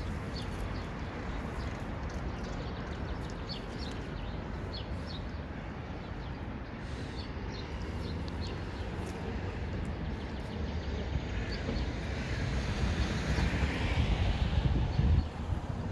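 Street ambience: a steady low rumble of passing traffic with faint short bird chirps. The rumble swells louder a few seconds before the end and then drops off suddenly.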